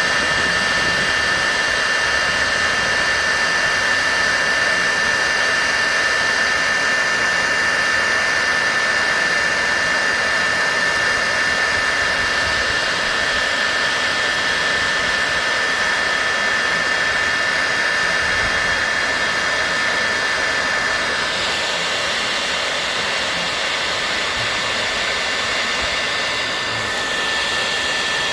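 Bosch hot air gun running: a steady blowing hiss with a high fan whine, the tone shifting a little about two-thirds of the way through.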